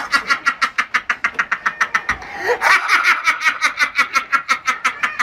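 A person laughing hard in a fast string of short, high-pitched bursts, with a brief catch of breath about two and a half seconds in before the laughter starts again.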